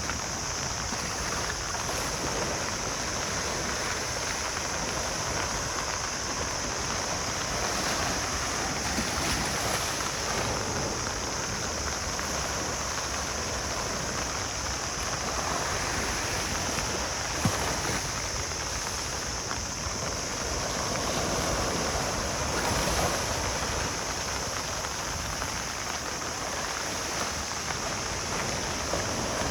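Ocean surf washing onto a beach: a continuous wash of waves that swells gently every several seconds, with one brief click a little past halfway.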